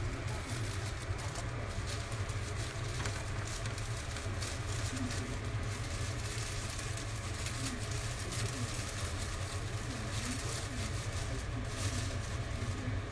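Steady low kitchen hum, with light crinkling of a plastic bag as greens are picked out of it by hand.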